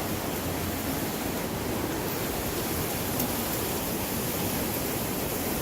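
Steady rushing of running water, an even hiss with no breaks or changes.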